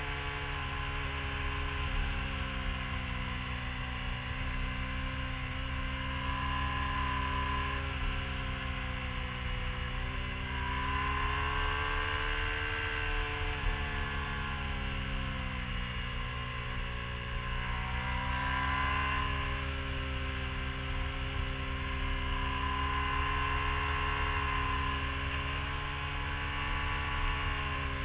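Motorcycle engine heard from a bike-mounted camera, its pitch rising and falling again and again as the rider rolls on and off the throttle through a series of curves. A steady low hum runs underneath.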